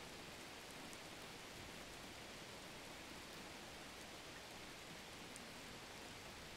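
Faint steady hiss of background noise with no distinct sounds, close to silence.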